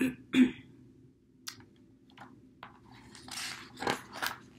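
Paper pages of a hardcover picture book being handled and turned. There are two short knocks at the start and scattered small clicks, then a papery rustle with a couple of sharper swishes as a page is flipped, about three to four seconds in.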